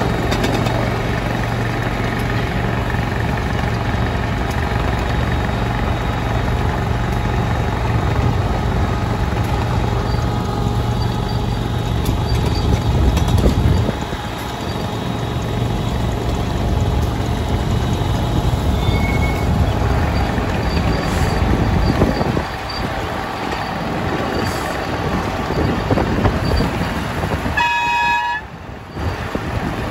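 Petrol-engined 7.25-inch gauge model of a Victorian Railways T Class diesel locomotive running steadily along the track, heard from the car right behind it. Near the end it sounds one short horn toot.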